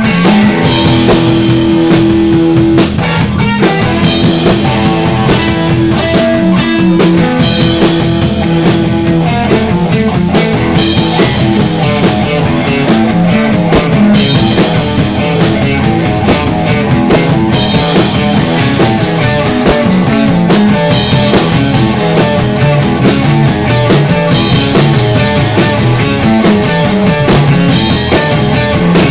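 A rock band playing loudly: guitar over a full drum kit.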